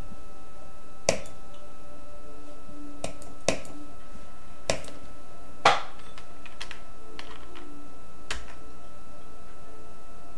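Several single sharp clicks at irregular intervals, the loudest one a little past halfway through, over a steady low background hiss with a faint constant tone.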